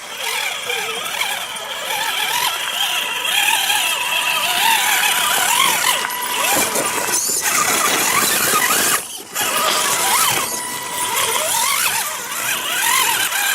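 Whine of RC rock crawlers' electric motors and gear trains, rising and falling in pitch with the throttle as they crawl, with a short pause about nine seconds in.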